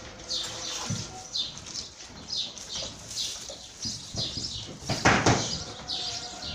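Small birds chirping over and over in short, quick, downward-sliding notes, with a few dull thumps, the loudest about five seconds in.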